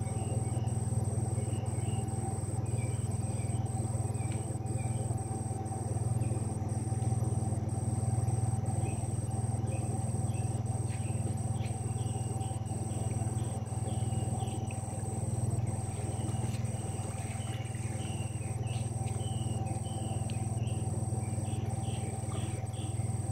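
Evening outdoor wildlife chorus: a steady high insect drone with scattered short chirping calls that grow busier about halfway through, over a steady low hum.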